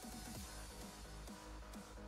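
Quiet electronic background music with a steady beat.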